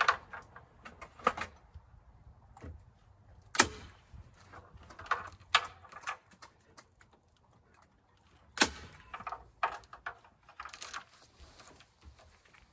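Staple gun fastening light-set cables: scattered sharp snaps and clicks, two loud ones about four and nine seconds in, with lighter clicks and handling rustle between.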